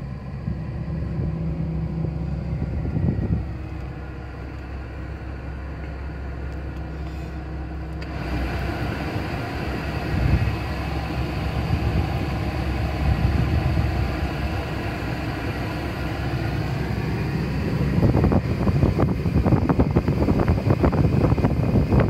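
Subaru kei car's engine idling, heard from inside the cabin as a steady low hum, with the air-conditioning blower rushing from the dash vents; the rush of air grows about eight seconds in. Irregular knocks and rustling join near the end.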